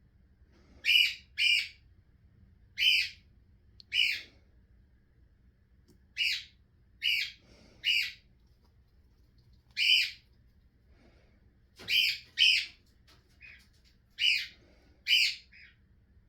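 Barnacle goose giving about a dozen short, high-pitched calls, several in quick pairs about half a second apart.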